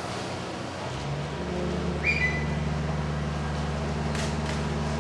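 A heavy machine's engine running steadily on a concrete pour, stepping up to a higher, louder idle about a second in. A short rising whistle, settling on a held tone, sounds about two seconds in.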